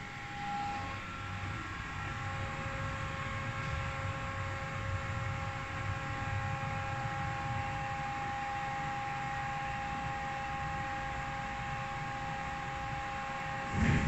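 Pilawa hydraulic lift car travelling down, heard from inside the car: a steady hum of several fixed tones over a low rumble. A short knock comes right at the end.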